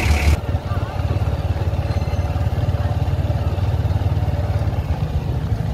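A louder car engine hum cuts off a moment in. It gives way to a small motorcycle engine running at low speed with a fast, even putter.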